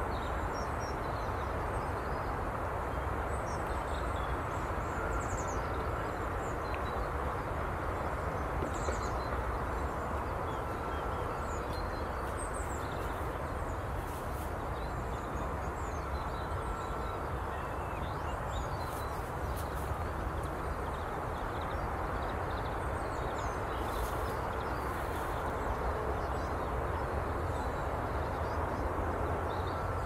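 Steady outdoor background rumble with faint, scattered chirps of small birds calling throughout.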